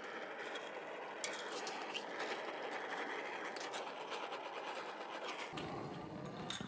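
Electric heat gun running steadily, blowing hot air to shrink heat-shrink tubing over a wiring joint. It cuts off near the end.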